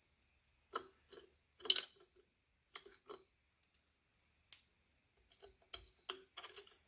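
Scattered small clicks and taps of metal parts being handled while fitting screws to a bike wheel's drum brake, with one louder clatter about two seconds in.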